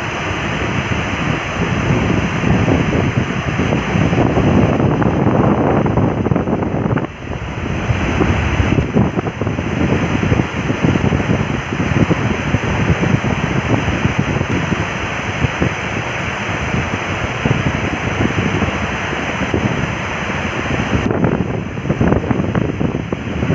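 Heavy rain pouring in a steady, loud rush, with wind buffeting the microphone into a rough, uneven rumble.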